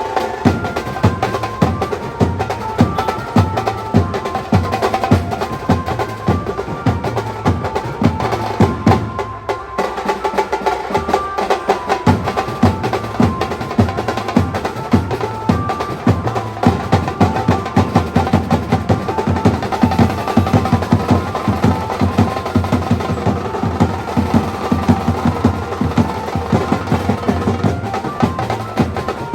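Indian banjo party band playing live: a banjo carries a fast melody over dense, rapid drumming. The drums drop out briefly about nine and a half seconds in, then come back.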